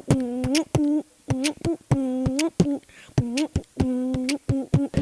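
Rhythmic beatbox-style vocal music: short hummed or sung notes that bend upward at their ends, alternating with sharp clicks in a quick, even beat.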